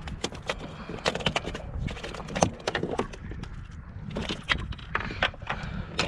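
Irregular taps, clicks and knocks of a just-caught whiting and fishing gear being handled on a kayak, over a low steady rumble.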